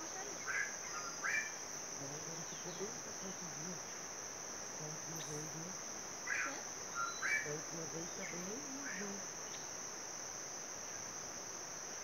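Steady, unbroken high-pitched drone of an insect chorus, with a few short chirps about half a second and a second in and again around six to seven and a half seconds.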